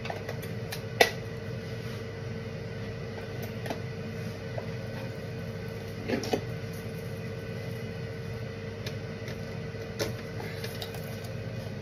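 A steady low hum with a faint steady tone through it, and a few light clicks and knocks.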